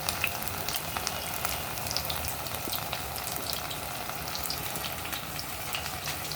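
Marinated chicken kabab pieces deep-frying in hot oil: a steady sizzle with many small pops and crackles.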